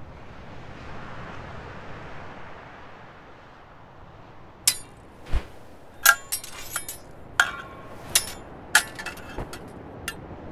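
Wind noise, then from about halfway a rapid run of a dozen or so metallic clashes of steel swords and a buckler, each ringing briefly, with one dull thud among the first strikes.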